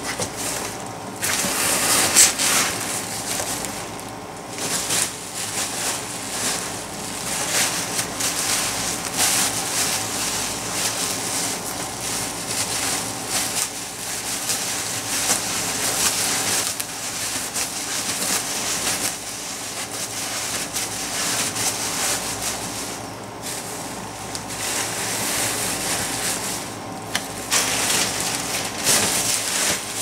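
Packing materials being handled, with continuous rustling and crinkling of plastic and paper. A faint steady hum runs underneath.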